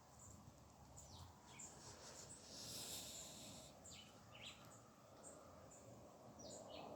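Faint birds chirping outdoors, short high calls repeating every second or so, with a brief hiss about three seconds in.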